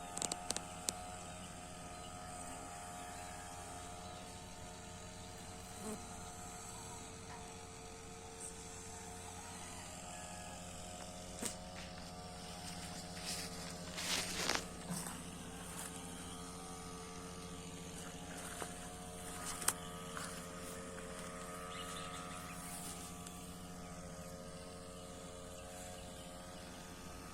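A steady buzzing hum made of several level tones, with a few scattered clicks and knocks, the loudest cluster about halfway through.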